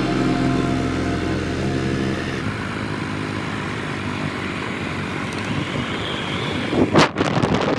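Motorbike running along a road, heard from the pillion, with steady wind and road noise. A brief, loud rush of wind comes about seven seconds in.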